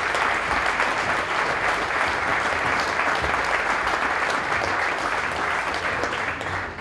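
Audience applauding steadily, a dense patter of many hands clapping, which dies away near the end.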